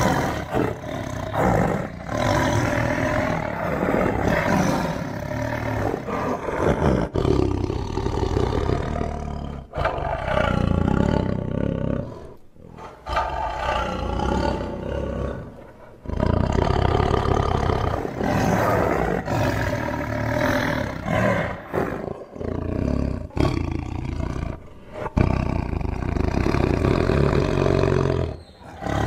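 Tiger roaring and growling, a run of long, throaty calls one after another with short breaks between them.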